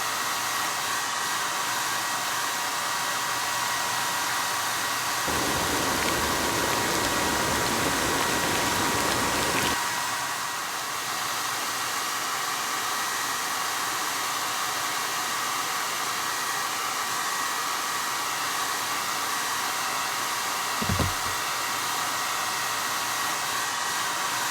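Handheld hair dryer running steadily: a rushing blow of air with a motor whine. A little over five seconds in it grows louder and fuller for about four seconds, then settles back.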